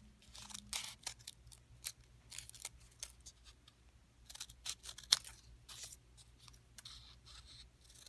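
Scissors snipping through folded copy paper in a run of short, irregular cuts, the sharpest snip about five seconds in.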